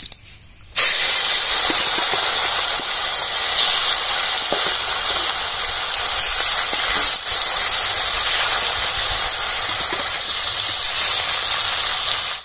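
Turmeric-coated rewa fish pieces going into hot mustard oil in a kadhai, the oil breaking into a loud, steady sizzle about a second in.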